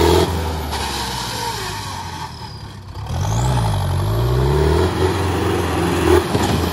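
Sonalika tractor's diesel engine revving hard during a wheelie stunt, pouring black smoke. The revs and loudness sag about two to three seconds in, then climb again and waver up and down as the throttle is worked.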